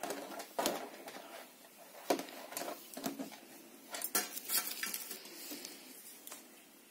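Metal knitting needles, still in the knitted hat's stitches, clinking and rattling against each other and the tabletop as the hat is handled and laid flat: a scatter of light, irregular clicks.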